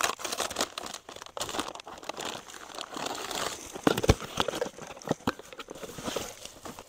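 Brown kraft-paper mailer bag crinkling and rustling as it is opened and a small cardboard box is pulled out of it, in a run of irregular crackles, the sharpest about four seconds in.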